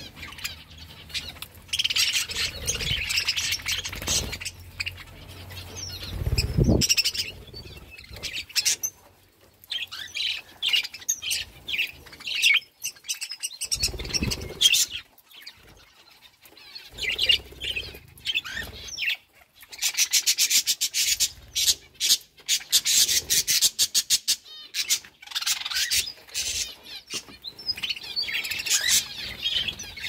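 A flock of budgerigars chirping and chattering in short, high, overlapping calls, with a few seconds of rapid wing fluttering past the middle.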